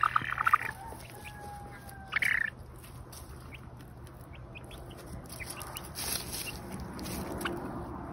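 Young chickens dust-bathing: a loud, pulsing call at the start and another short one about two seconds in. Soft scratching and rustling of feathers in dry soil follow.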